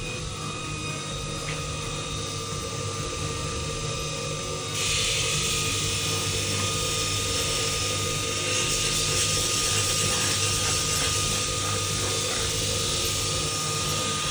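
Belt grinder running with a steady motor hum. About five seconds in, a metal part is pressed against the abrasive belt and a loud grinding hiss begins.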